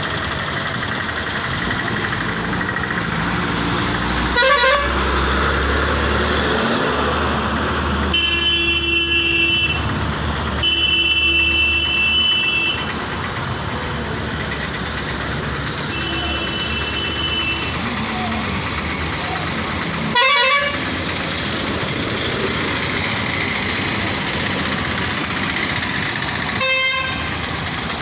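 Busy road traffic: engines running with a low rumble through the first half, and a vehicle horn honking three times, two long blasts about 8 and 11 seconds in and a shorter one about 16 seconds in. A few brief loud bumps break in now and then.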